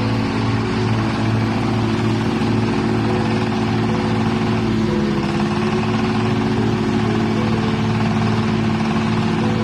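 Garden branch shredder-chipper's engine running steadily, its pitch dipping slightly about halfway through.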